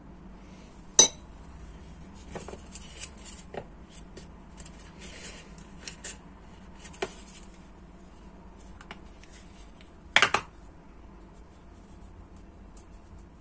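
Handling sounds from hand-making pelmeni on a stone countertop: filling put on dough circles, folded and pinched shut, with small taps and rustles. A sharp knock comes about a second in and a louder double knock about ten seconds in.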